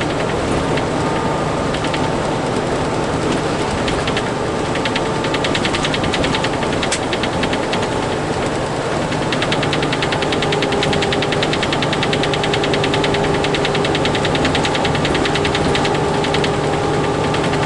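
Fast rattling from the back of a Freightliner semi truck's cab while driving, over the steady drone of the engine and road, loudest in the second half. The rattle's source is unknown and it is not the sleeper drawer, which has been taken out.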